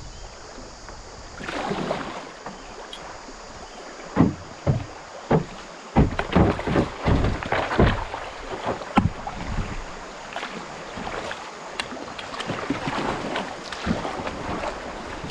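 A canoe being paddled through a shallow rapid: paddle strokes splashing, with a quick series of sharp knocks and splashes in the middle against a steady rush of moving water.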